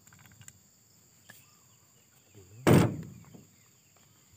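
One loud, sudden thump about two-thirds of the way through, amid small clicks of hands working on a chainsaw's cylinder block during disassembly, over a steady high drone of insects.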